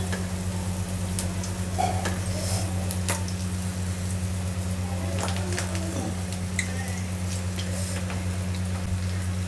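Balls of grated raw potato deep-frying in medium-hot oil in a kadai: a steady sizzle and bubbling with scattered small crackles, over a steady low hum.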